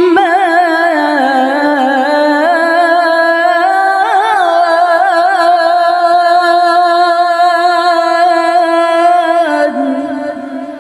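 A woman reciting the Qur'an in melodic tilawah style, holding one long ornamented note with wavering vibrato and melismatic turns. The note drops in pitch and fades out near the end.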